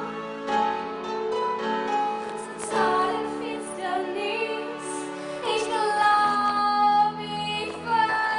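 A musical theatre song: a singer holding long, wavering notes over instrumental accompaniment.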